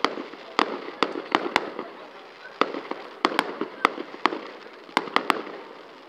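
Fireworks display: shells bursting in a rapid, irregular series of sharp bangs, about a dozen, coming in quick clusters.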